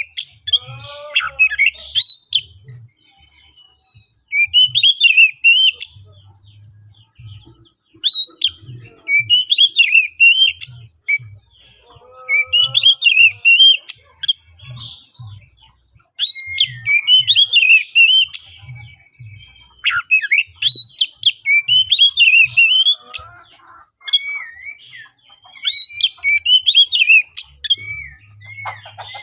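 Oriental magpie-robin (kacer) singing loud, rapid, varied whistled phrases in repeated bursts about every two seconds. This is its fierce, combative territorial song, used to provoke rival males into answering.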